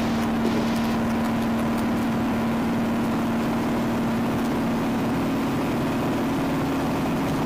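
Piper Archer's four-cylinder Lycoming engine and propeller running steadily in flight, heard inside the cabin as a constant drone with one clear steady tone in it.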